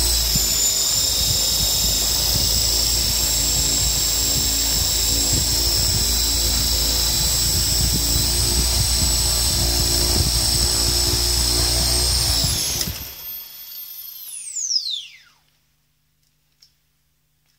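Small brushless motor driving the converted toy RC helicopter's rotor through its gear at high throttle: a loud, steady high whine over a low rumble. About twelve and a half seconds in the rumble stops and the whine jumps higher as the gear comes off the motor, which is too much speed for it; the motor spins free, then its whine falls steeply and dies away.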